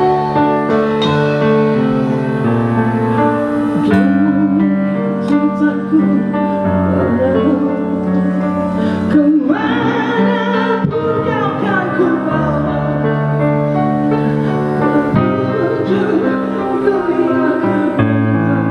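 Live band music: a slow song with held chords and bass notes, and a singing voice with vibrato carrying the melody, strongest about halfway through.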